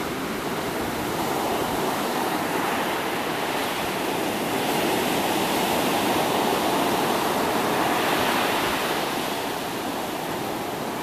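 Ocean surf: waves breaking and foam washing up a sandy beach, a steady rushing that swells a little in the middle and eases toward the end.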